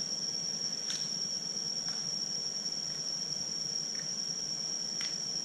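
Insects singing in one continuous, steady high-pitched drone, with a few faint short clicks about a second apart.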